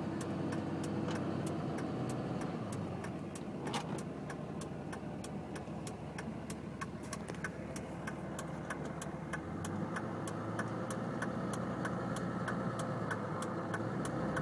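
Car road noise heard from inside the cabin while driving at highway speed: a steady rumble of tyres and engine, with a faint regular ticking about three times a second.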